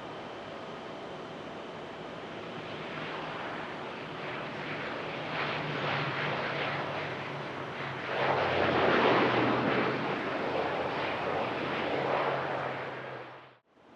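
An airplane passing close on the runway, its engine noise building to loudest about two thirds of the way through with a low steady hum underneath, then cut off abruptly near the end.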